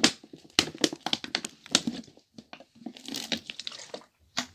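Rustling and crinkling as things are rummaged through by hand, with many sharp clicks and knocks scattered throughout.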